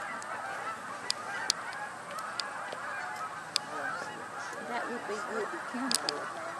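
A large flock of Canada geese honking in flight overhead, many calls overlapping into a continuous chorus. A few sharp clicks stand out above it.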